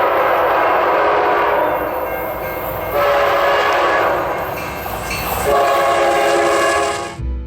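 Train horn sounding in long blasts, a steady chord that swells again about three seconds in and about five and a half seconds in, with the rumble of the passing train beneath it. It cuts off suddenly near the end as music begins.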